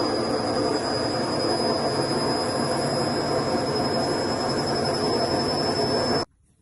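Candy front-loading washing machine running, a steady loud rumble with a high whine over it, which cuts off suddenly near the end.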